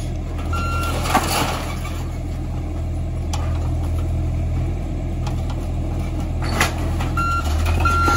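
Heavy demolition machine's diesel engine running steadily, its reversing alarm beeping once about half a second in and twice near the end. A couple of sharp knocks come through as well.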